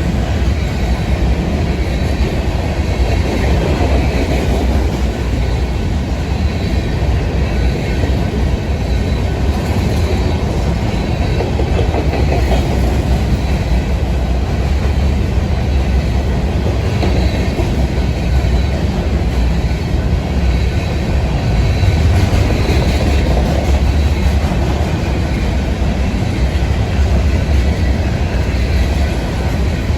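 Freight train of empty cars rolling past, a steady, loud, low rumble of wheels on rails.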